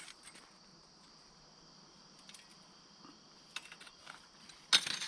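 Steady chirping of crickets, with a few light metallic clicks and then a louder brief clatter near the end as a steel sawmill bandsaw blade is flexed and twisted into a coil.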